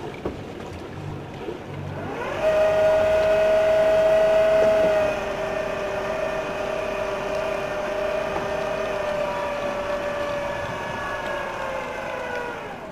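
Boat hoist's motor starting with a whine that rises in pitch about two seconds in, running at a steady high pitch for about ten seconds, then sagging slightly and cutting off near the end.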